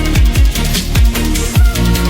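Electronic background music with a fast beat and deep, dropping bass kicks.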